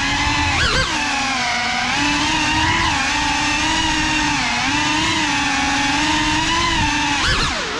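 FPV quadcopter's brushless motors and propellers whining in flight, heard through the camera on board; the pitch sways with the throttle, jumping up sharply a little under a second in and again near the end after a brief dip.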